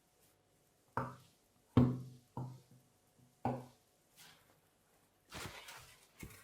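Four sharp knocks of parts or tools being handled on a work surface, the second the loudest, then a brief rustling scrape near the end.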